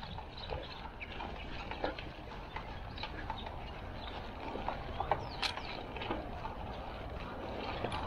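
Mountain bike rolling over a dry, stony dirt trail: tyres crunching on loose soil and pebbles, with many small rattling clicks from the bike over a steady low rumble.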